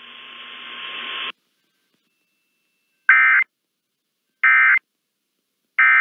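Radio hiss for about a second, then three short, identical bursts of warbling data tones about a second and a half apart: the EAS/SAME end-of-message code sent by NOAA Weather Radio to mark the end of the broadcast statement.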